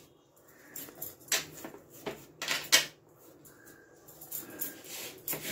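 A hand patting and pressing soft semolina barfi mixture flat on a ceramic plate: soft pats and rubbing, with several short, sharp clinks.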